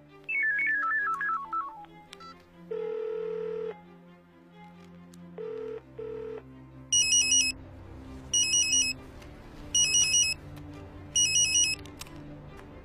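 Mobile phone ringing with an electronic trilling ringtone, four rings about a second and a half apart, over quiet low film-score music. Before the rings come a quick falling run of notes, then one long steady beep and two short ones.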